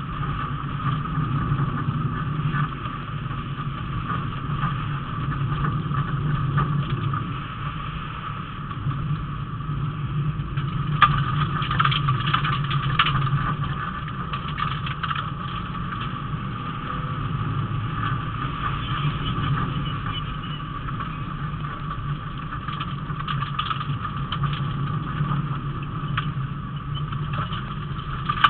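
Rally car engine running hard on a stage, heard from inside the cabin, with tyre and road noise and no big rises or falls in revs. About eleven seconds in, a run of sharp knocks and rattles lasts a couple of seconds.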